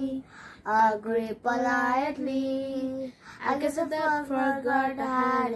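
A young girl singing a song unaccompanied, in phrases of long held notes with short breaks for breath about half a second in and just after three seconds.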